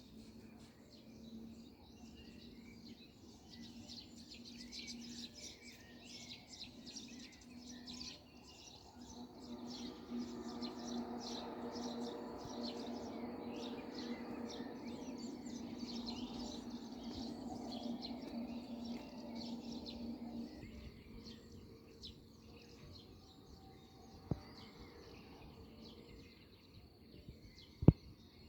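Songbirds chirping and singing, with many short calls throughout. Under them is a steady low hum that grows louder about a third of the way in and cuts off abruptly about two-thirds through. A few sharp knocks come near the end.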